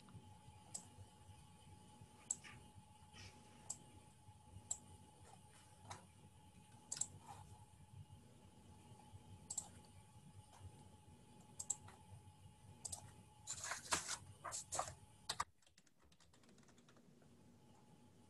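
Computer keyboard and mouse clicking: single clicks about once a second, then a quick run of several keystrokes near the end.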